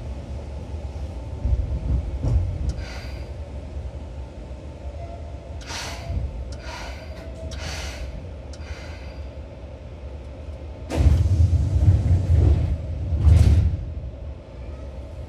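Seibu 2000 series electric train running, heard from on board: a steady low rumble, with a few short hisses and a louder stretch of rumbling about three seconds long near the end.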